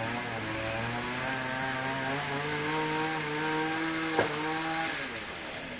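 Chainsaw running at steady throttle in tree work, its pitch rising a little about two seconds in and dropping off near the end as the throttle is released. A sharp click about four seconds in.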